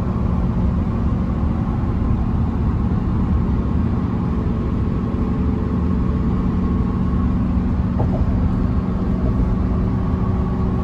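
Steady road and engine drone of a Ford F-150 pickup cruising on the highway while towing a large trailer, heard from inside the cab.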